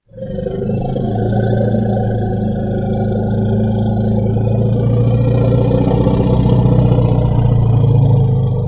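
Elephant giving a long, low, rough rumbling growl that holds steady for several seconds and swells slightly toward the end.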